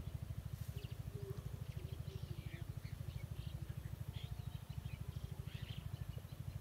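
A small engine running steadily, a rapid low thudding of about a dozen beats a second, with birds chirping now and then over it.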